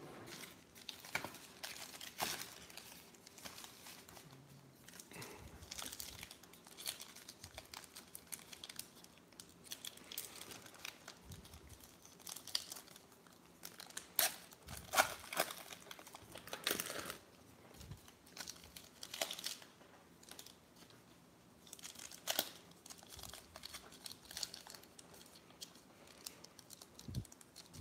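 Plastic wrappers of trading card packs crinkling and tearing as they are ripped open by hand, in irregular crackles that are loudest about halfway through.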